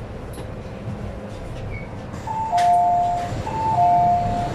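A two-tone electronic chime aboard an MTR Tsuen Wan Line M-Train sounds twice, a higher note then a lower one each time, over the train's low, steady rumble.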